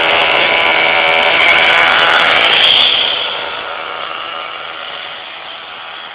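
Small nitro glow engine of a hybrid radio-controlled car running at high revs with a high, buzzing whine. The pitch climbs about two to three seconds in, then the sound fades as the car pulls away.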